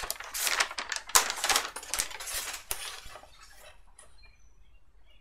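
Chalk pounce bag being patted and rubbed over a perforated paper pattern on a board: quick dry taps and paper rustling. It eases off after about three and a half seconds.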